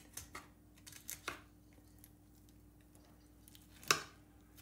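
Knife sliding along a quail's breastbone as the breast meat is filleted off: a few short, faint scrapes and clicks, the loudest just before the end, over a faint steady hum.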